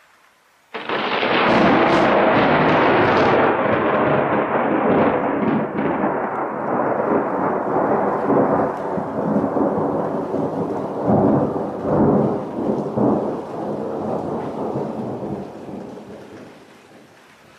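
Loud thunderclap that breaks suddenly with a crackling crack, then rolls on as a long rumble. The rumble swells again a couple of times before dying away near the end.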